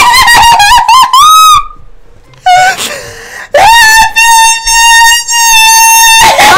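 Women screaming in excitement: wavering, high-pitched shrieks, then one long held scream from about three and a half seconds in.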